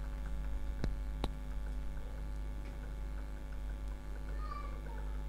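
Steady low electrical hum, with two light clicks a little under half a second apart about a second in, as a spray can is handled against the printer's plastic housing.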